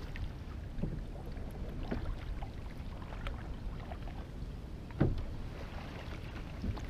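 Canoe being paddled on a river: a wooden paddle dipping and splashing, with water moving along the hull and scattered light knocks. A louder thump comes about five seconds in.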